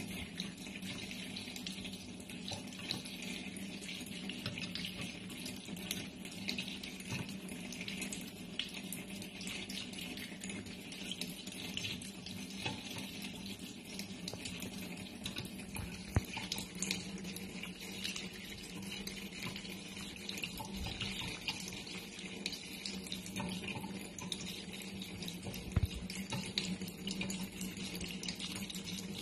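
Thin stream of water running steadily from a pull-down kitchen faucet into a steel sink, with a steady low hum underneath and a few faint clicks.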